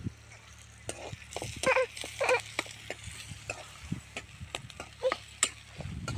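Metal spoon stirring and scraping a metal kadai of onions and green chillies frying in oil, with a low sizzle and repeated short clicks of the spoon against the pan. Two short louder calls sound about two seconds in.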